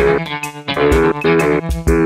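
Instrumental background music: pitched melodic notes over a sustained bass line, changing every fraction of a second.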